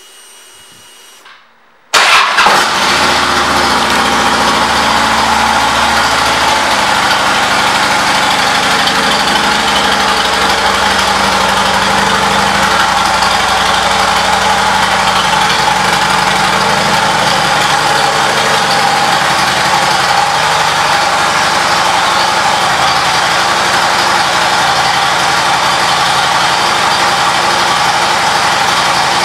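2009 Harley-Davidson Street Glide's Twin Cam 96 V-twin starting about two seconds in, then idling steadily.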